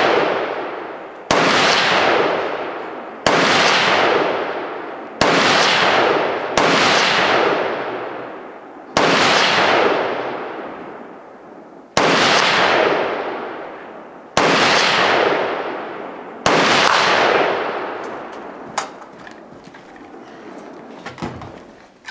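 Eight gunshots, roughly two seconds apart, each followed by a long echo that fades away before the next. After the last shot come a few faint clicks and knocks.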